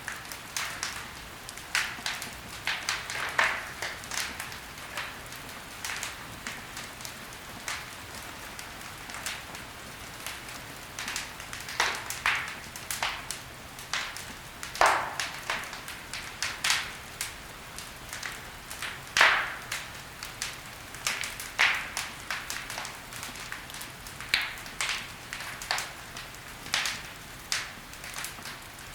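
Wood fire crackling in a fireplace: sharp pops and snaps at irregular intervals, a few a second, over a soft steady hiss, with a handful of louder snaps standing out.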